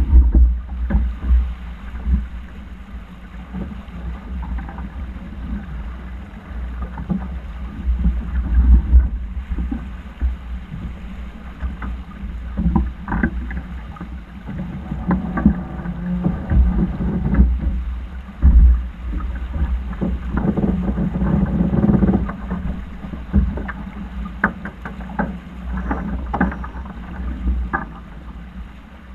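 Sailing yacht under way: wind buffeting the microphone over a steady rush of water along the hull, with scattered knocks and rattles.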